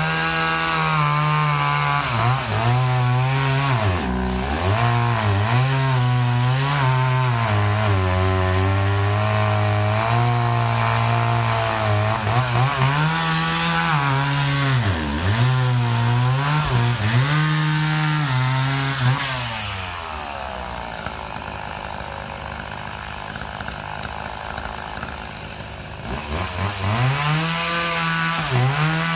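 Chainsaw running at high revs and cutting wood, its pitch dipping again and again as the chain loads up in the cut. About two-thirds of the way through it drops back to a quieter idle for several seconds, then revs up again near the end.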